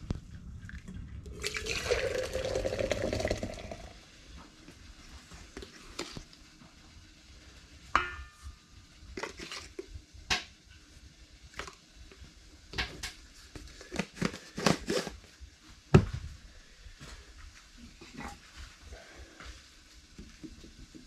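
Water pouring for about two seconds, then scattered clinks and taps of a scoop against a coffee jar and a stainless steel coffee pot. There is a brief ringing metal clink, one sharp loud knock near the end, and light scraping as the grounds are stirred with a wooden stick.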